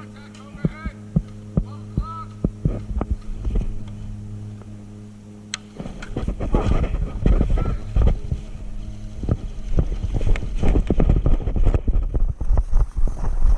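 A steady electrical hum with scattered sharp clicks cuts off about six seconds in. After that come the louder, continuous crunching and rustling of a player moving on foot through woods and brush, with wind buffeting the microphone.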